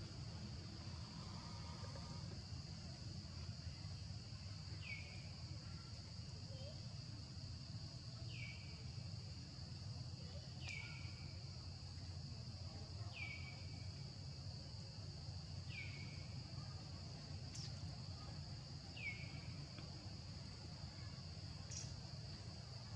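Faint forest ambience: a steady high insect drone under a low rumble, with a bird giving a short, falling call six times, every two to three seconds.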